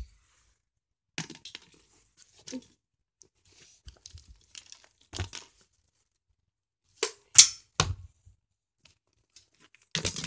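Handling noise: irregular rustles, scrapes and knocks as the camera and toys are moved about, with a cluster of sharper, louder noises about seven seconds in.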